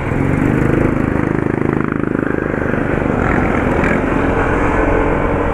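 Honda ADV 150 scooter's single-cylinder engine running under way, rising in pitch as it speeds up about a second in and then holding steady, over a low wind rumble.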